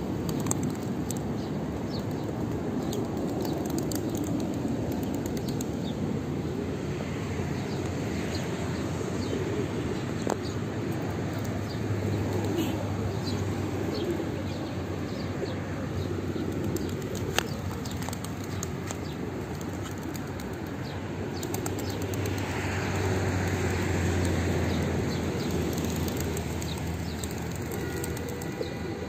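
A flock of feral pigeons feeding at close range: low cooing, wings flapping as birds shuffle and take off, and scattered sharp clicks.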